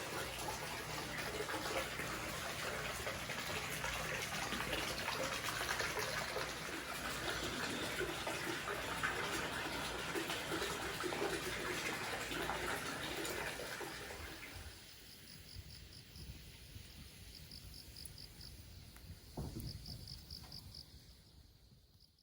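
Water running steadily for about fourteen seconds, then fading out. In the quieter part that follows, crickets chirp in rapid, evenly spaced pulses, with a single knock near the end.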